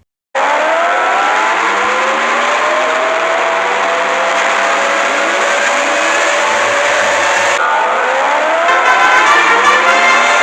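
Several outdoor warning sirens wailing at once, their overlapping tones rising and falling in pitch over a steady hiss. The sound starts abruptly after a brief silence.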